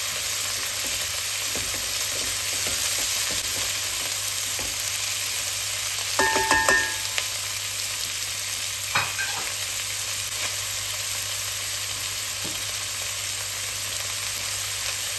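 Diced onion, carrot and celery sizzling steadily as they fry in a heavy pot, stirred with a spoon. A few sharp metallic clinks ring out about six seconds in, and there is another single click about three seconds later.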